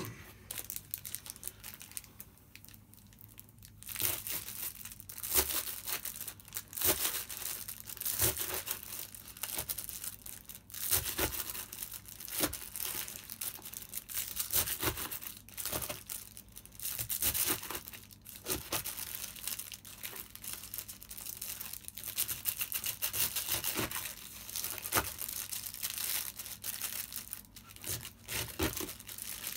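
A freshly sharpened hatchet chopping through a plastic-wrapped napa cabbage onto cardboard, testing its edge. The chops come irregularly, roughly one a second from a few seconds in, each a crisp crunch of cabbage leaves with a crinkle of the plastic wrap.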